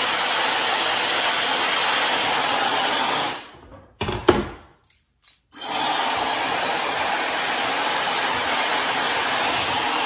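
Dyson Supersonic hair dryer blowing steadily, then switched off a little over three seconds in and winding down. A brief sharp knock comes about a second later, and the dryer starts up again about two seconds after that and runs on steadily.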